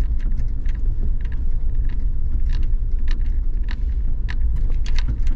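Suzuki Jimny driving slowly over a rough campsite road: a steady low rumble with frequent sharp clicks and knocks scattered through it.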